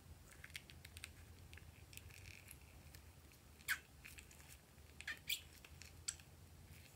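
A rubber balloon squeezed by hand, pushing thick red slime out into a glass bowl: faint sticky squelches and small wet clicks, with a few sharper squelches in the second half.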